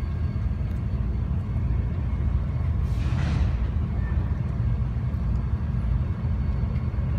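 Freight train of autorack cars rolling past, a steady low rumble of steel wheels on rail, with a brief hiss about three seconds in.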